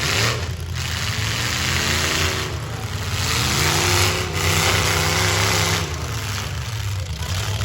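V8 engines of full-size demolition derby cars running and revving, the pitch rising and falling over the middle few seconds.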